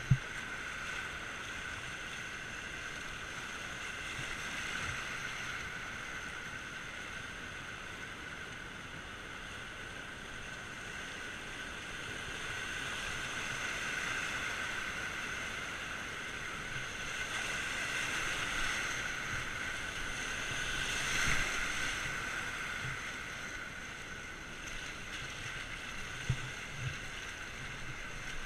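Whitewater rapids rushing around a kayak, a steady hiss of moving water that swells loudest about three-quarters of the way through, with a few soft knocks from paddling.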